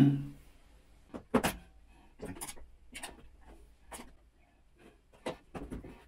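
Plastic clicks and knocks from a washing machine's detergent-dispenser housing being handled and worked loose from its clips: a string of short, sharp, irregular clicks, the loudest about a second and a half in.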